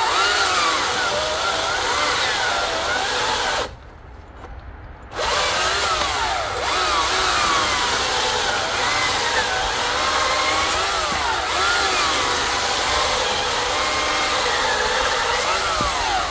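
Greenworks Commercial 82-volt cordless chainsaw cutting a small log: a steady electric motor and chain whine whose pitch sags and recovers as the chain bites. It stops briefly a few seconds in, then runs again for the rest.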